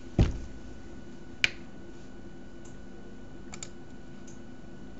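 Clicks at a computer desk: a dull thump just after the start, a sharp click about a second and a half in, and a few faint clicks near the middle and end, over a steady low hum.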